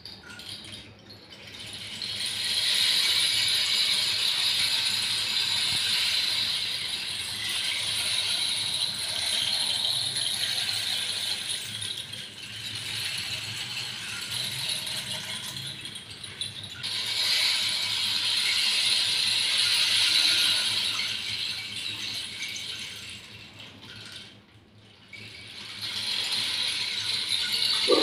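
Rainstick tilted so its pellets cascade down inside the tube, making a steady rain-like rushing patter. It is turned over twice, so the flow breaks off briefly and starts again, giving three long pours.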